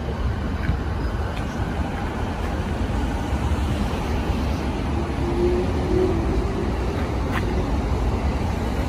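Steady rumble and hiss of a JR East 209 series 500 electric commuter train around a station platform, with a short steady tone about five seconds in.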